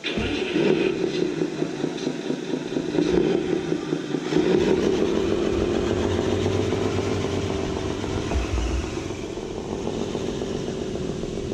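Radio-controlled truck's motor running steadily, with a low, uneven rumble of wind on the microphone.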